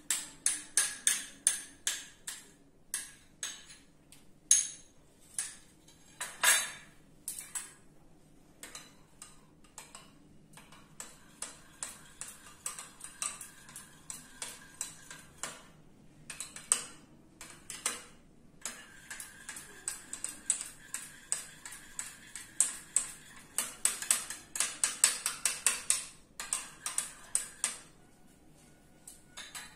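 Metal spoon clinking against a ceramic mug while stirring pancake batter, in quick runs of strikes broken by short pauses.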